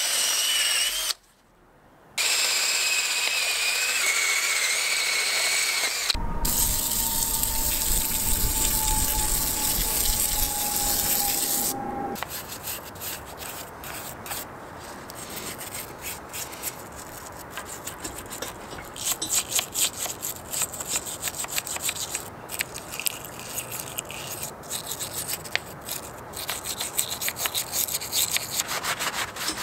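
A cordless drill spins a brush against a Honda B-series aluminium engine block with a steady high whine, broken by edits. After about twelve seconds a rag scrubs and wipes the wet block in quick, scratchy rubbing strokes.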